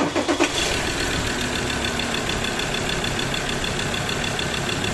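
Mazda BT-50's 3.2-litre five-cylinder diesel engine idling steadily, running again after its failed camshaft position sensor was dealt with.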